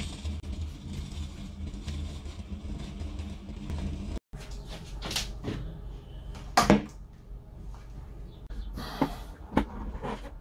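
Low steady hum with hiss from the Ei Melos Luxe radio-gramophone. After a sudden cut about four seconds in, hands on the cabinet and control knobs make scattered knocks and clicks, the loudest about two-thirds of the way through.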